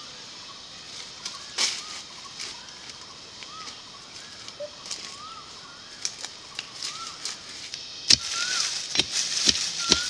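Outdoor rural ambience: a bird gives short chirping calls every second or so over a steady high background. Near the end a stick digging into the ground knocks and rustles through dry leaf litter, sharp and louder than the rest.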